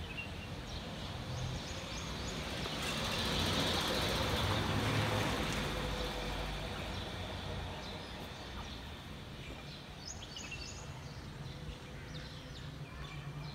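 A passing vehicle, its noise swelling over the first few seconds and fading by about eight seconds in, with small birds chirping now and then.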